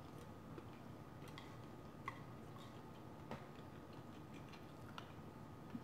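Quiet eating sounds: a few faint, irregular clicks as a wooden spoon scoops rice from a plate during chewing.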